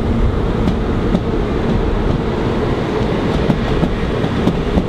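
N700-series Shinkansen bullet train pulling out of the station: a steady, loud rumble of the train running on the rails, with a few faint clicks.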